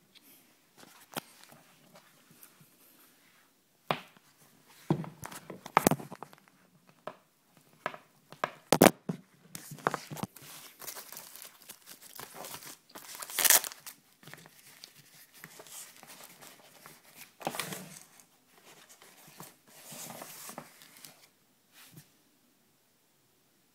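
Irregular handling noises at close range: sharp clicks and knocks, the loudest about six, nine and thirteen seconds in, with stretches of crinkling and rustling between them.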